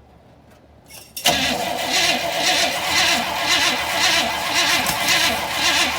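Starter motor cranking a Chevrolet 283 small-block V8, starting about a second in, with an even rhythmic chug of about three beats a second. The engine turns over but does not fire: a no-start, with the battery and fuel pump known to be good.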